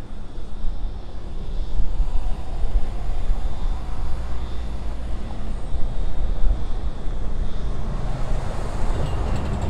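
Diesel locomotives hauling a freight train on approach, a low, steady engine rumble that grows louder over the first couple of seconds.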